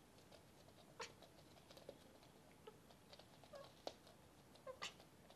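Mostly quiet, with faint scattered clicks and taps from Bengal cats' paws and claws on a laminate floor, and two short, soft chirps from a Bengal cat near the end.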